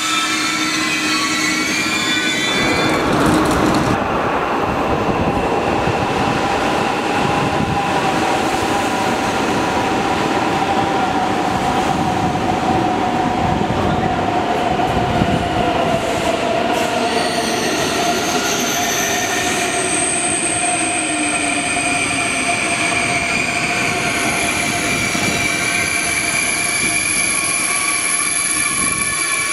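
ICE 3 high-speed electric train running into a station and slowing. Its traction motors whine in tones that fall steadily in pitch as it brakes, and high squealing tones join in the second half.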